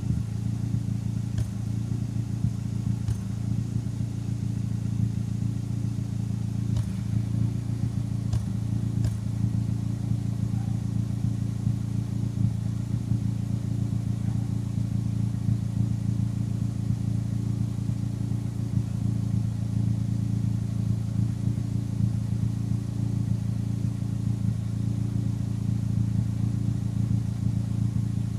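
Turbocharged Nissan Micra engine idling warm at the exhaust, steady, with a handful of sharp pops in the first ten seconds. These are the random exhaust cough/misfire the owner suspects comes from the larger SR20 injectors he fitted.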